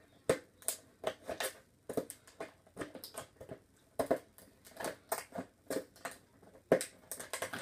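Plastic and cardboard packaging of a boxed model train wagon being opened by hand: irregular crackles, snaps and rustles, a few to a second, with one sharper snap near the end.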